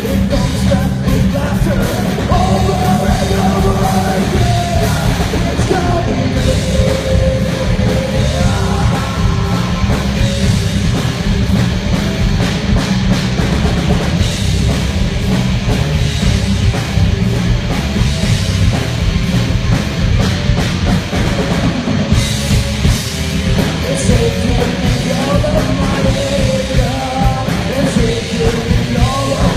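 A live heavy rock band playing loud: distorted electric guitars, bass and a drum kit. Sung vocals come in the first few seconds and again near the end, with an instrumental stretch between.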